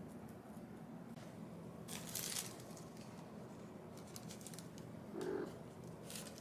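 Thin plastic shopping bag rustling and crinkling in short, faint bursts as cats nose at it, with a cluster of light ticks about four seconds in. A brief low sound about five seconds in.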